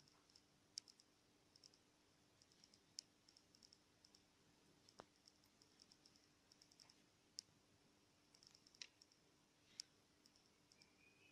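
Near silence, with faint irregular small clicks of a metal crochet hook working through yarn stitches, some in quick little clusters and a few sharper single ticks. A faint low hum runs underneath.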